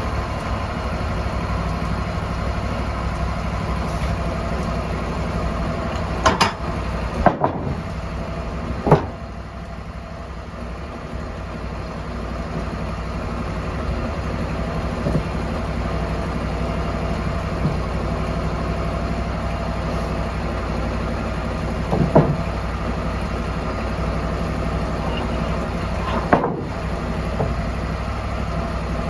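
An engine idling steadily, with a few sharp knocks or clanks scattered through, five in all: three close together about six to nine seconds in, then two more later on.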